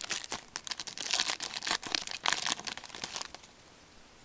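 Crinkling and tearing of a hockey card pack's wrapper being opened, a quick run of crackles that stops a little over three seconds in.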